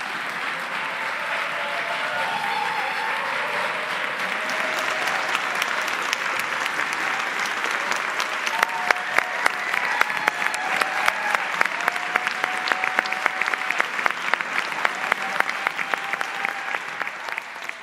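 A large congregation applauding. About halfway through, the clapping falls into a steady rhythm, with a few voices calling out over it.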